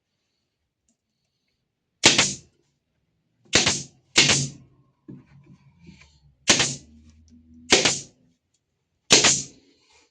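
Six sharp knocks, irregularly spaced over several seconds, each with a short ringing tail.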